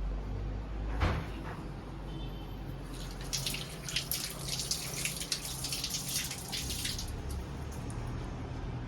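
Water running from a tap and splashing for about four seconds, after a single knock about a second in.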